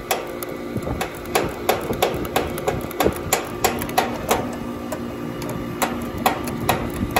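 Quick, evenly spaced clicks, about three a second, from a hand tool cranking a condensing unit's high-side service valve closed during a refrigerant pump-down. Under them is the steady hum of the running unit.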